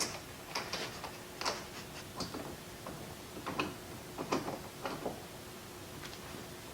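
Irregular light clicks and taps of screws and door-handle hardware being handled and fitted, about a dozen in all, over a faint steady hum.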